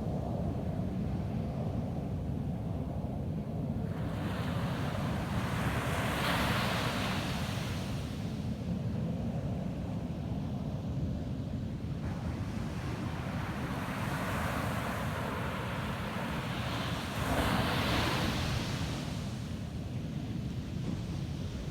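Ocean waves breaking on a sandy beach: two waves wash in with a rising hiss, one peaking about six seconds in and the next about eleven seconds later. Under them a steady low rumble of surf and wind on the microphone.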